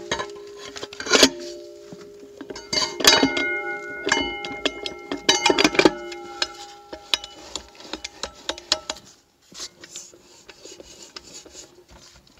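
The steel sun gear and its shell are clinking and ringing as they are worked down into the TH350 transmission case. A few sharp metal clanks in the first six seconds each leave a ringing tone, then lighter clicks and taps follow that grow quieter near the end.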